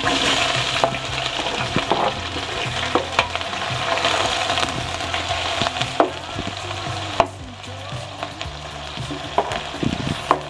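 Sliced onions sizzling in hot oil in a large aluminium pot, loudest as they go in. A metal spatula stirs them with scattered scrapes and clacks against the pot.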